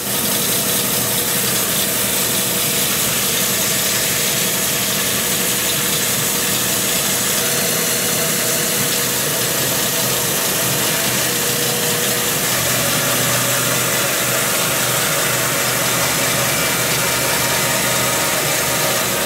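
Bandsaw running with its blade cutting lengthwise through a moss-covered log, splitting it through the pith: a loud, steady cutting noise over a faint steady hum.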